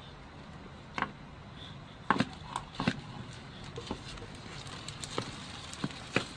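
Tortoise shells knocking together as a male mounts and shoves a female: irregular sharp clacks, about ten in all, the loudest cluster around two to three seconds in.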